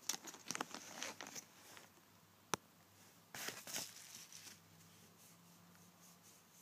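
Clear plastic parts bag crinkling as it is handled, with a quick run of small crackles and clicks at the start, one sharp click about two and a half seconds in, and another short rustle a second later.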